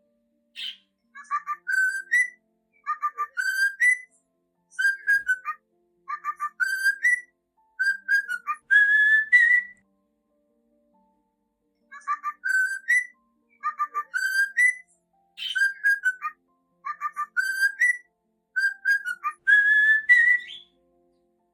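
Cockatiel whistling its song: short phrases of quick clipped notes, each ending in an upward slurred whistle, repeated over and over with a brief pause about halfway.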